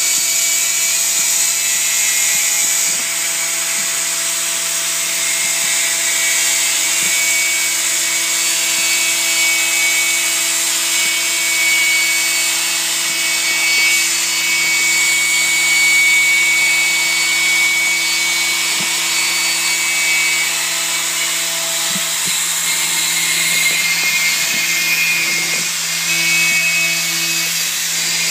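Spindle of a DMS 5-axis CNC machining center running at speed and milling a composite part: a steady whine over a hiss of cutting, its tone shifting now and then as the tool moves along the cut.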